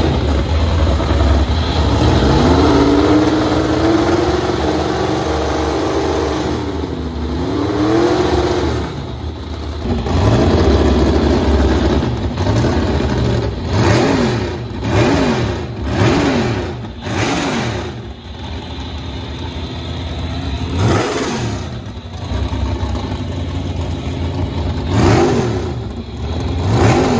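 468-cubic-inch alloy big-block Chevy race boat engine with a single carburettor, running at a held raised rev for a few seconds, dipping briefly, then revved in a string of sharp throttle blips about one a second, with a few more spaced-out blips near the end.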